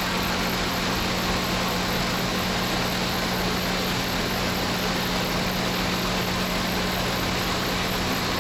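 Inside a Santiago Metro NS-74 rubber-tyred train car while it runs: a steady rush of running noise with a constant low hum underneath.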